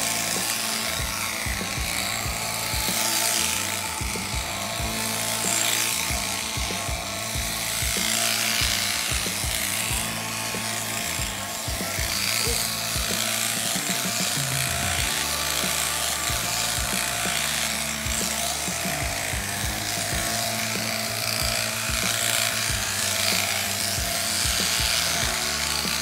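Background music with a steady beat and a stepping bass line. Under it runs the buzz of an electric sheep-shearing handpiece cutting through fleece.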